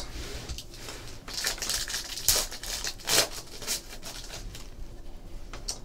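Foil wrapper of a Panini Contenders football card pack being crinkled and torn open by hand: an irregular run of crinkling rustles.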